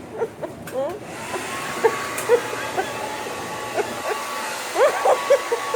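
Handheld hair dryer switched on about a second in and running steadily: rushing air with a light steady whine.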